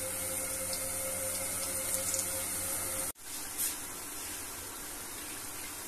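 Samosas deep-frying in hot oil in an aluminium pan: a steady sizzling hiss. It breaks off briefly about three seconds in and resumes a little quieter.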